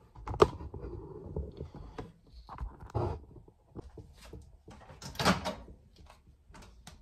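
Scattered knocks and handling clatter in a small kitchen, then a countertop microwave's door popping open on its latch about five seconds in.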